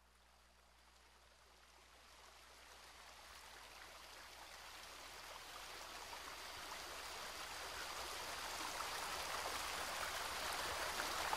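Steady rushing water, fading in gradually from faint to moderately loud.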